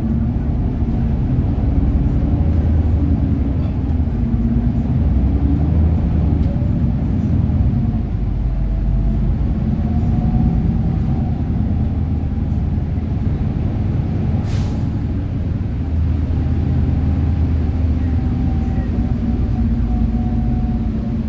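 City bus engine and road rumble heard from inside the bus while it drives, with engine tones that drift up and down a little. A brief hiss sounds about two-thirds of the way through.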